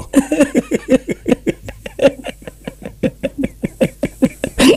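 A person's voice in rapid, short, evenly spaced syllables, about seven a second.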